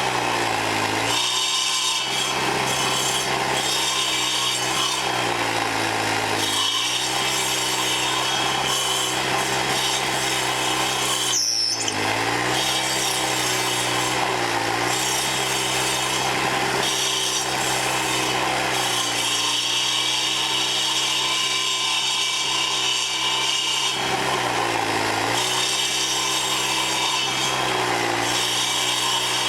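Troy-Bilt gas sidewalk edger fitted with carbide-tipped 7¼-inch saw blades grinding into a cedar stump: a steady engine note under the rasp of the blades chewing wood. The engine pitch sags several times as the blades bite under load, then picks back up.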